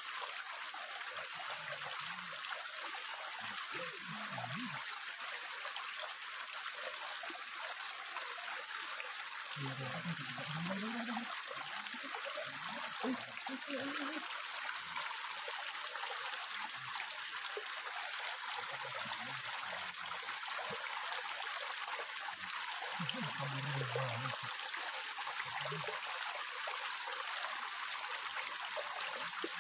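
Shallow rocky stream running and trickling steadily over stones.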